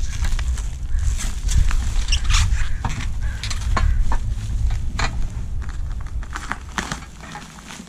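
Bubble wrap around steel exhaust pipes crinkling and crackling in irregular bursts as the wrapped pipes are handled and laid on a plastic table. A steady low rumble runs underneath and eases off near the end.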